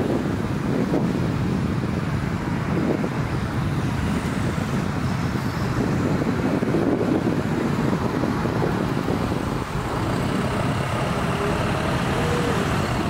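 Steady road traffic noise, a continuous low rumble of vehicles running past.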